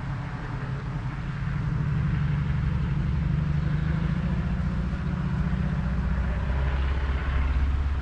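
A low, steady engine hum, which grows louder about a second and a half in and drops in pitch partway through.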